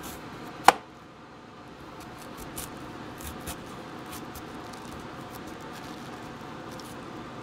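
Chef's knife cutting through a raw cabbage wedge on a plastic cutting board, with one sharp knock about a second in, then light, crisp slicing clicks. A steady hum of kitchen ventilation runs underneath.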